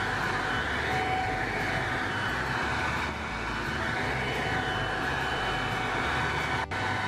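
Electric leaf blower running steadily at full speed, blowing a jet of air mixed with garden-hose water from a homemade pipe nozzle onto paving slabs, with the hiss of the spray on the stone. The sound drops out for an instant near the end.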